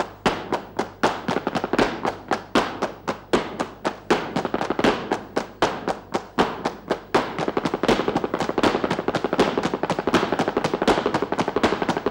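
Flamenco zapateado footwork on a stage floor together with palmas hand clapping: sharp percussive strikes at a steady beat, breaking into a fast, dense roll of strikes about seven seconds in.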